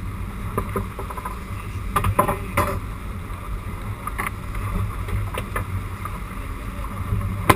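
Sport-fishing boat under way at sea: a steady low engine rumble with wind and water noise, and a few sharp knocks, clustered about two seconds in.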